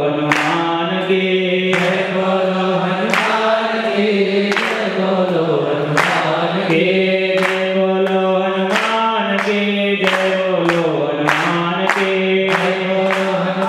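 Devotional chant sung by a group of voices, a slow melody sliding between held notes, with a sharp percussive strike keeping time about three times every two seconds.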